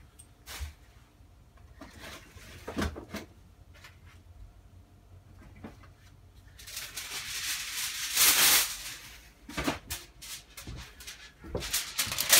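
Aluminium foil being pulled out and handled, a crinkling rustle lasting about three seconds past the middle, with a few light clicks before and after.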